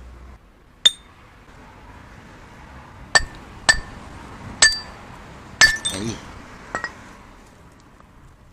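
Steel gearbox parts clinking against metal as they are handled, about six sharp strikes, each with a short ring.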